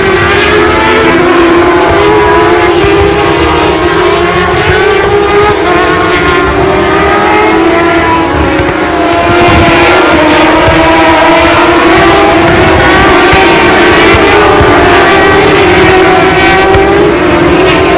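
Several racing motorcycle engines at high revs, their pitches overlapping and rising and falling as riders shift through the gears, growing louder about halfway through as the pack draws near.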